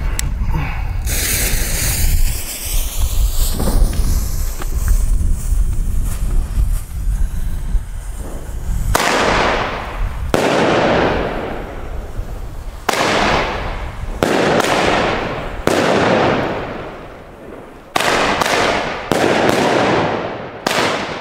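A fan of Weco GBV Asian Thunder single-shot bomb tubes going off: a hiss about a second in, then from about halfway a string of about ten sharp launch thumps and aerial bangs, each echoing away, coming faster near the end.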